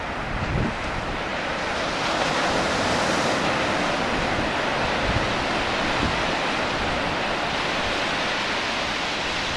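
Ocean surf washing steadily onto the beach, with wind rumbling on the microphone; the surf swells a little about two seconds in.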